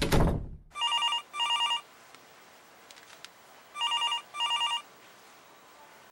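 A telephone ringing in double rings, two short pulses each time, heard twice about three seconds apart. At the very start, a short sound sweeps quickly down in pitch and dies away.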